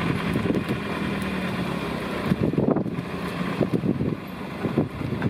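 Safari vehicle's engine running steadily, with wind on the microphone and a few short knocks.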